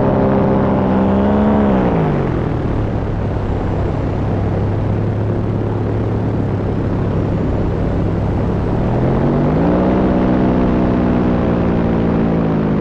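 Scout paramotor's two-stroke engine and propeller running in flight, with wind rushing over the microphone. About two seconds in the engine note drops as it is throttled back, holds low, and about nine seconds in it rises again as the throttle opens.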